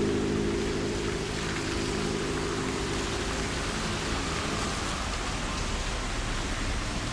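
A car engine's steady hum fading out over the first two seconds, leaving a steady outdoor hiss.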